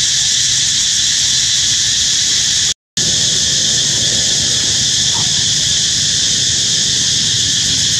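Loud, steady chorus of insects, high and even, that cuts out for a moment about three seconds in.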